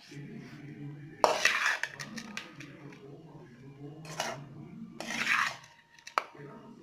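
A metal spoon scraping and knocking against a metal cooking pot while stirring cooked rice with tamarind paste. There are a few scrapes and clinks, the loudest about a second in.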